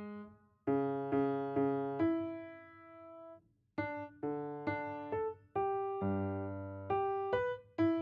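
Solo piano playing twelve-tone serial music: single notes and chords struck one after another, each dying away, with a short pause near the start and another in the middle.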